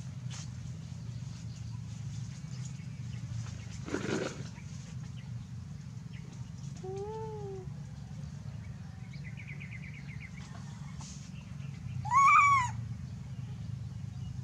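Animal calls over a steady low hum: a short rising-and-falling call about seven seconds in, a faint high trill, and a louder, higher rising-and-falling call near the end.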